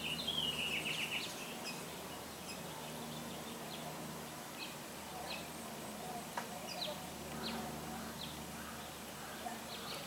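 Songbirds calling: a quick run of high chirps in the first second, then scattered single short chirps.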